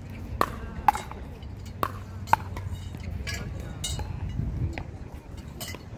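Pickleball paddles striking the hard plastic ball in a quick rally: four sharp pocks in the first two and a half seconds, then a few fainter pocks.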